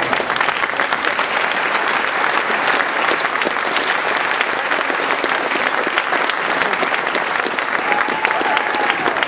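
A large crowd applauding in a school gym: many hands clapping in a dense, steady patter.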